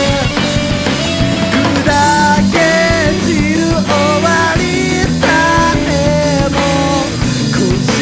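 Rock band recording with drum kit, electric guitars and bass, carrying a melodic lead line that holds notes and bends between them, in a stretch without sung lyrics.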